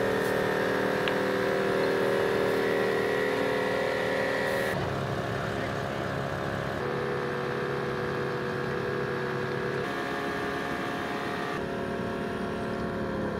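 Dual-motor onboard air compressor running steadily with a droning hum while inflating a large off-road tire through an air chuck, with the vehicle's engine off. The hum shifts abruptly about five seconds in and again near the end.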